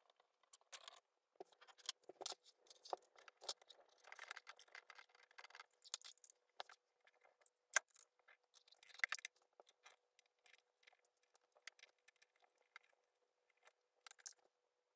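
Irregular light clicks, taps and rustles of small objects being handled, busiest in the first half, over a faint steady hum.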